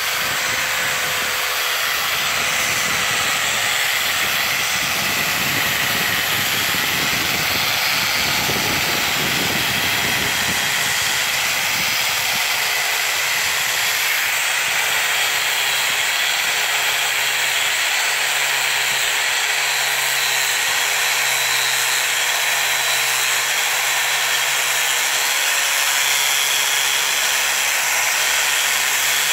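Electric angle grinder with a sanding pad running continuously while sanding a solid jackfruit-wood door: a steady motor whine over the hiss of the abrasive on the wood. The whine wavers slightly in pitch in the second half.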